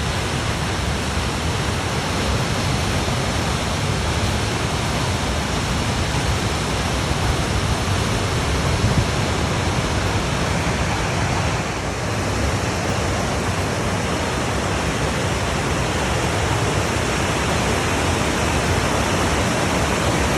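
Waterfall roaring: a steady rush of falling water.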